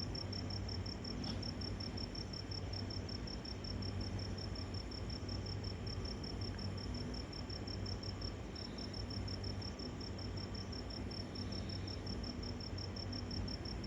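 Crickets chirping in a rapid, even pulse, with a short break about eight seconds in, over a low steady hum. There is no thunder.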